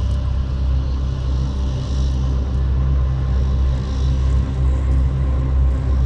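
Sci-fi UFO sound effect: a steady, deep hum with a stack of even tones above it and faint wavering tones high up, like a flying saucer hovering.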